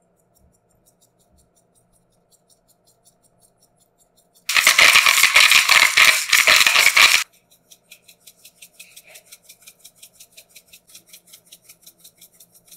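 Kitchen food-preparation sounds: faint ticking, then a loud rattling for nearly three seconds, then a quick even clicking of about six ticks a second.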